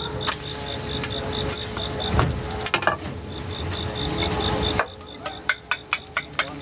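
Food-stall cooking noise: a steady sizzling hiss with stirring, a few sharp clinks about three seconds in and a quick run of them near the end. A rapid high-pitched beeping pulses over it, pausing briefly midway.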